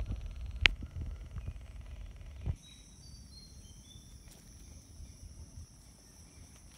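Steady, high-pitched chirring of insects. For the first two and a half seconds, low rustling and knocking in dry leaves and ground litter lies over it, with one sharp click about a second in. After that the chirring goes on alone.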